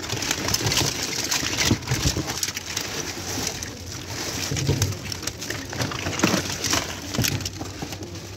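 Plastic toys clattering and rustling as hands rummage through a cardboard box full of them, an uneven run of small knocks and rattles.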